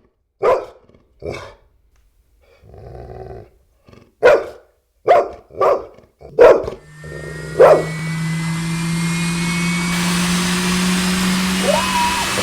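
A dog barking in short, sharp single barks, with a low growl between them. About seven seconds in, a steady motor hum with a high whine starts up and keeps going under the last barks.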